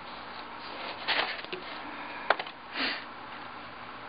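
Quiet close-up handling sounds: a short soft hiss about a second in, a light click a little after two seconds, and another short hiss just before three seconds.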